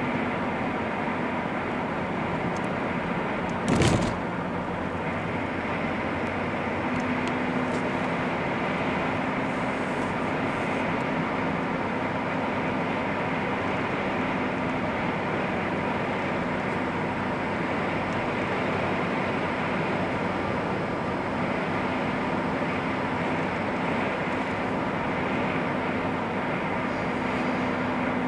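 Car driving at road speed: steady engine and tyre noise, with one brief thump about four seconds in.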